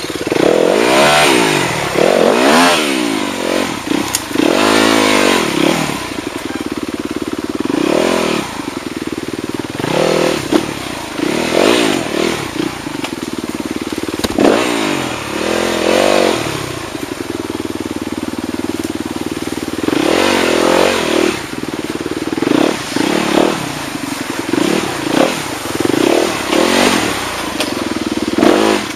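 Motorcycle engine running and repeatedly revved in short bursts, its pitch rising and falling irregularly between steadier stretches.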